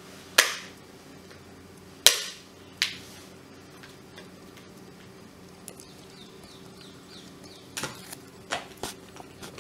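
Sharp plastic clicks and knocks as parts are snapped onto a hand blender's plastic motor body, the loudest about two seconds in. Near the end comes a quieter run of small clicks as the blending shaft is pushed onto the motor unit.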